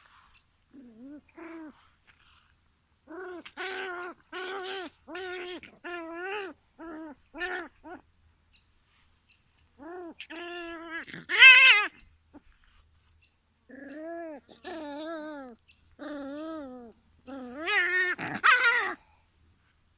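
A dog making a string of short, pitched whining calls that rise and fall, in three bouts, the loudest about halfway through and near the end.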